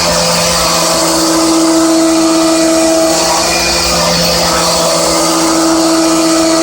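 A 16 mm Nachreiner HPC end mill spinning at 4800 rpm in a Hermle C20U machining centre, trochoidal milling at 30 mm depth of cut and 1 mm stepover. It makes a steady cutting whine over a hiss, and the whine strengthens and fades every second or two.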